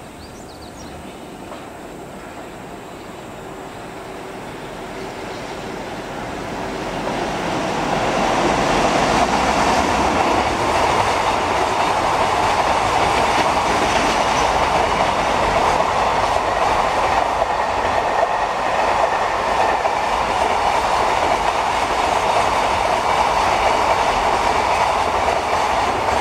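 JR Freight container train hauled by an EH500 electric locomotive passing close by. The sound of the train grows louder over the first eight seconds, then holds as a steady rolling clatter of the container wagons' wheels on the rails.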